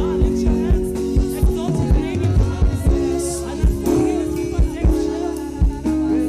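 Live gospel praise band playing, with held keyboard chords over a steady kick-drum beat and voices singing along.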